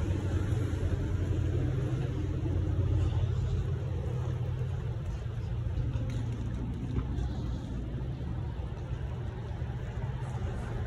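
Low, steady rumble of street traffic, with the hum of vehicle engines.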